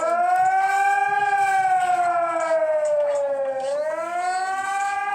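Warning siren wailing: one held tone that rises slowly, peaks about a second in, sinks to a low at about three and a half seconds and climbs again near the end.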